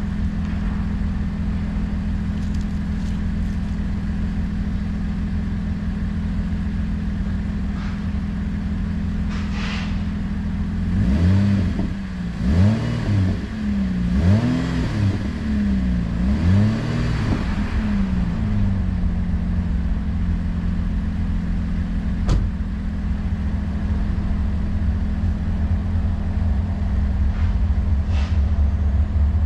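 Car engine running with a loud, broken exhaust pipe. From about 11 seconds in it is revved several times in quick succession, each rev rising and falling in pitch, then it settles back to a steady idle. A single sharp click sounds about 22 seconds in.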